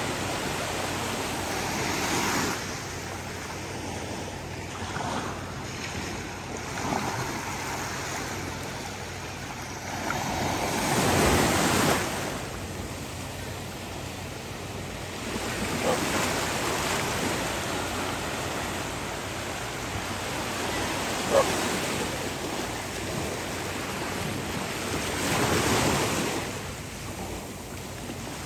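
Ocean surf: low waves breaking and washing up the beach, the rushing noise swelling and fading every few seconds with one bigger surge about a third of the way through. A single short click about two-thirds through.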